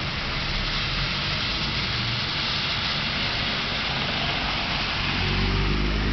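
Heavy typhoon rain pouring steadily. Under it a motor vehicle's engine runs low and grows louder about five seconds in.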